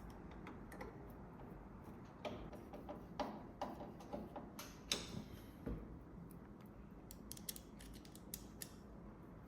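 Small screws being driven into a metal key cabinet with a screwdriver: faint scattered clicks and short metallic scrapes, busiest in the middle.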